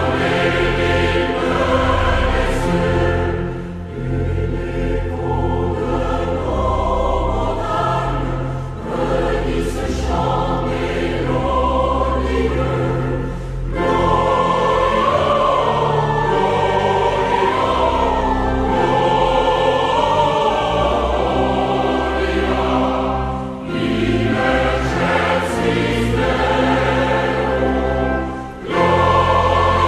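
Christmas choral music: a choir singing sustained lines over instrumental accompaniment with a steady bass.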